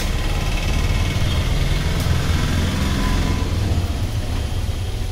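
A steady low rumble of an idling engine, with a single light click about two seconds in.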